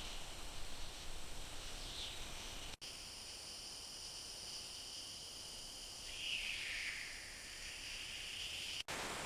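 Rainforest ambience: an insect chorus of steady, high, layered buzzing, with a call that slides down in pitch about six seconds in. The sound drops out briefly twice, once about three seconds in and once near the end.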